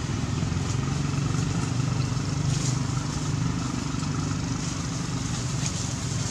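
Steady low drone of a motor vehicle engine running, holding an even pitch throughout.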